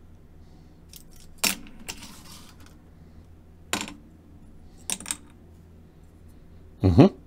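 Small die-cast toy car parts clicking and clinking together as they are handled: a few separate clinks, with a louder knock near the end.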